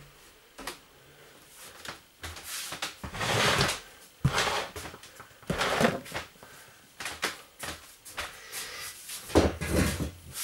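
Packing noises: a box and clothes being handled, with several rustling scrapes and knocks spread through, the loudest near the end.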